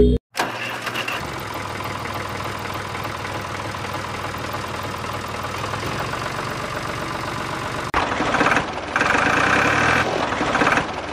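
A small motor running steadily with a fast, even rattle. About eight seconds in, the sound turns louder and higher-pitched.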